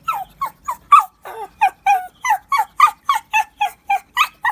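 A pug giving short, high yips that fall in pitch, in a quick even run of about three or four a second.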